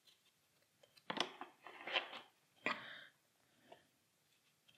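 Card decks being set down into a cardboard game box: three soft knocks with rustling, about one, two and nearly three seconds in, and a faint tick after.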